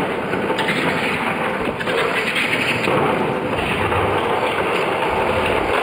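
Toy electric slot cars running around a plastic racing track: small motors whirring and the cars rattling over the track sections in a steady, loud noise.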